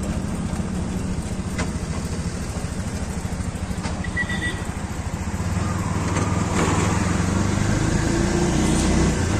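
Auto-rickshaw's small engine running steadily as it drives along, heard from inside the open passenger cabin, getting louder a little past the middle.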